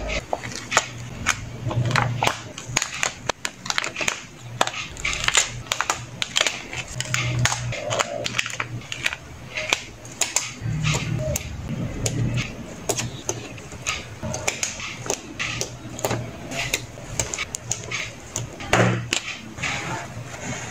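Close-up crackling and clicking of clear plastic sticker sheets being peeled and pressed onto a paper journal page with metal tweezers: many sharp, irregular ticks and taps with soft handling thuds underneath.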